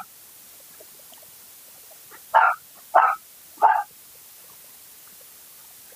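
A dog barks three times in quick succession, the barks a little over half a second apart, starting about two seconds in.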